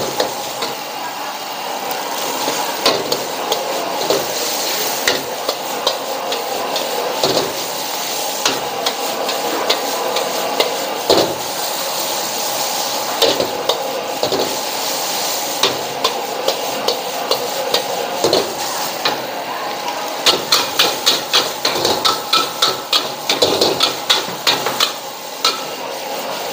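Fried rice sizzling in a wok over a gas burner, with a metal ladle scraping and clanking against the wok as the rice is stirred and tossed. Near the end the ladle strikes come in a fast run, several a second.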